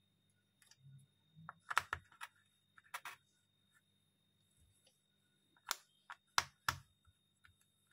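Wooden jigsaw puzzle pieces being set into a wooden puzzle tray: short, sharp wooden clicks and taps, in a cluster about two seconds in and another about six seconds in.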